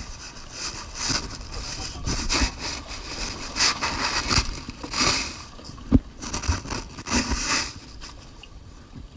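Irregular rustling and scraping bursts of the camera being handled and wind buffeting the microphone, easing off near the end.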